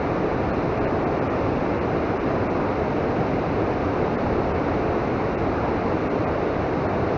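Steady rushing of flowing river water, an even noise that does not change.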